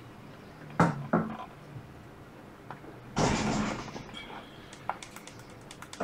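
Handling noise from an iPad Pro and its loose display panel on a wooden workbench: two sharp knocks about a second in, a short scraping slide around three seconds in, then a few light ticks.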